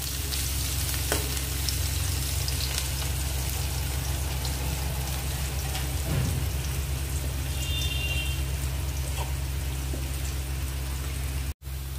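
Sliced onion frying in hot oil in an aluminium kadhai, a steady sizzle and crackle of small spatters, with a spatula stirring it at the start. The onion is being fried until golden. A steady low hum runs underneath, and the sound cuts out for an instant near the end.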